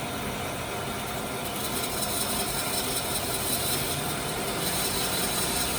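Band saw running steadily with its motor and blade turning, ready for the cut.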